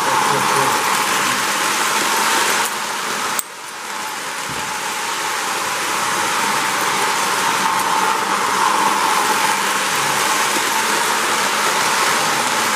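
O-gauge model train running on three-rail track, a steady whirring, rolling noise of motor and wheels. It drops suddenly about three seconds in, then gradually builds back up.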